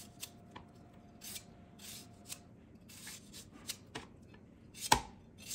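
Kitchen knife slicing thin strips off a peeled unripe mango held in the hand: a series of short, soft scraping strokes at an uneven pace. A sharp click about five seconds in is the loudest sound.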